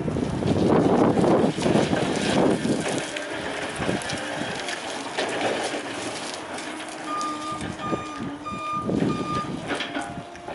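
Flexi G3 articulated forklift manoeuvring, its drive and hydraulics running loudest in the first few seconds. About seven seconds in, its reversing alarm beeps four times.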